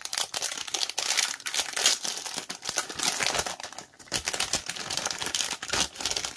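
Clear plastic packaging sleeve crinkling and rustling as it is handled and pulled off a croc-pattern binder divider. The crackling is continuous, with a brief lull about four seconds in.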